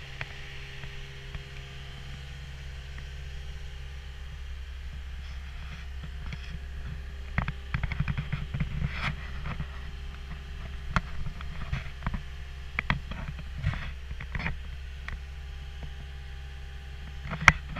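Caterpillar 279D compact track loader's diesel engine idling with a steady low hum. Scattered knocks and rattles of someone climbing into the cab come from about seven to fifteen seconds in, and there is one sharp knock near the end.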